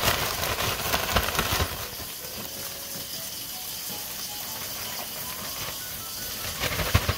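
Plastic bag of fish fillets and dry breading shaken hard, a dense crinkling rustle for about the first second and a half. Then a steady faint hiss, with a couple of low knocks near the end.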